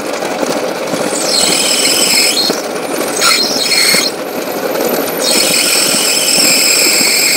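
A bench drill press runs while a small twist drill bit bores a pilot hole into a metal rod clamped in a vise. The bit squeals high-pitched in the metal in stretches: about a second in, briefly near the middle, and again from about five seconds in.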